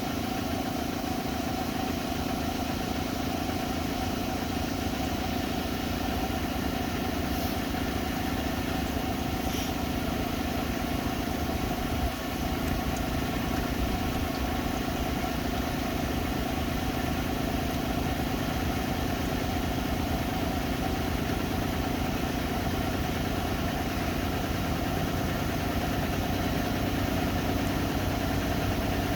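Washing machines on their final spin cycle, running with a steady hum and a steady whine, with one short knock about twelve seconds in.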